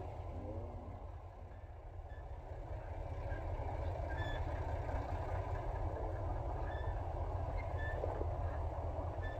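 Compact tractor's engine running steadily as it drives off pulling a utility trailer, growing louder after about three seconds, with a few short faint high chirps now and then.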